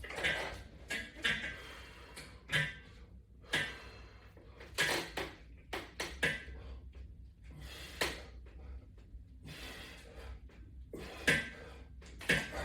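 Short bursts of forced breath and knocks from the resistance-band equipment, roughly one every one to one and a half seconds, during resistance-band pull-down reps.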